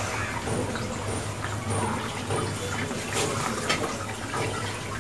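Oil sizzling and bubbling steadily as semai (vermicelli) cakes deep-fry in a pan over low heat, with small crackles throughout.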